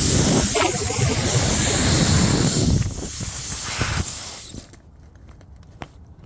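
Air hissing loudly out of a punctured car tyre as the plug-insertion tool is worked into the hole, fading away after about four seconds.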